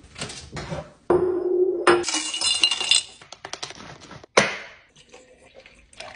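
Ice cubes clinking in a glass Mason jar as iced coffee is made, with a run of short noisy bursts and a single sharp knock a little over four seconds in; coffee poured over the ice near the end.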